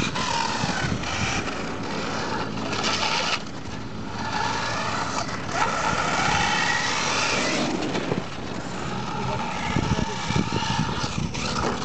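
Radio-controlled short-course truck's motor running at a high pitch, rising and falling as the throttle is worked.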